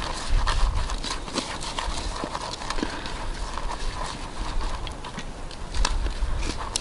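Fingers kneading damp fishing bait dough of breadcrumbs, garlic and gluten in a plastic tub: an irregular run of small crackling clicks as the crumbs are squeezed and mixed.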